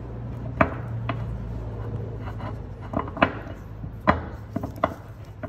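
Sharp, irregularly spaced clicks and taps of a steel pick tool against the steel piston head of a hydraulic cylinder as a rubber seal is prised out of its groove, over a steady low hum.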